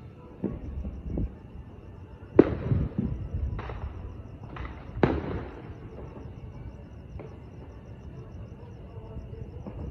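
Distant fireworks bangs: two faint pops, then four sharp bangs between about two and a half and five seconds in, each trailing off with an echo.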